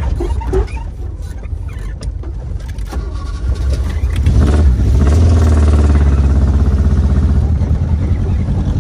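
Fiat 147 engine running unevenly at first, then restarted with the key about four seconds in: it catches, revs up, and is held at a steady fast speed on the accelerator to the end.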